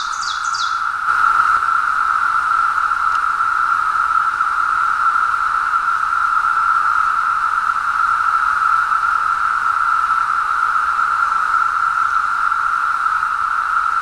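Steady, loud droning chorus of Brood X periodical cicadas, swelling slightly about a second in.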